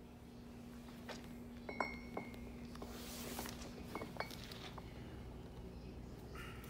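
Steel parts of a Caterpillar 58 winch being set in place by hand, with light metallic clinks. A couple of them ring on briefly, about two seconds in and again near four seconds. A low steady hum runs underneath.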